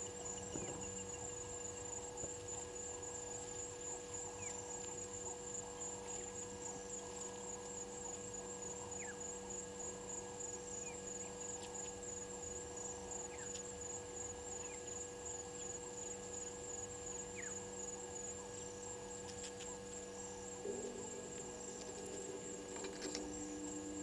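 A steady hum with a high, fast-pulsing insect trill over it, and a few faint short chirps scattered through. A second, lower droning tone joins near the end.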